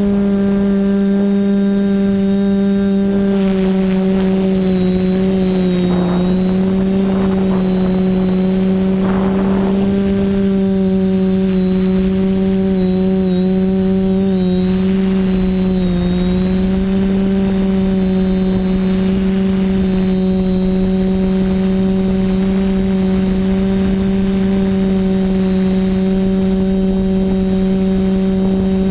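TBS Discovery quadcopter's Sunnysky 2216 800kv brushless motors spinning 10x5 propellers in flight: a steady, loud buzzing hum that dips slightly in pitch now and then as the throttle changes. A few brief rushes of noise come a few seconds in.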